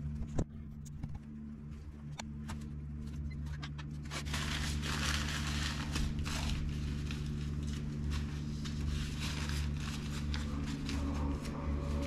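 Small clicks of handling, then paper towel rustling and crinkling from about four seconds in, over a steady low hum.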